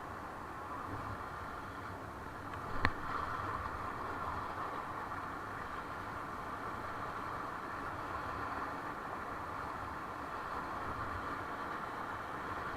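Steady rushing of river water around a raft being paddled on the Ganga, with one sharp knock about three seconds in.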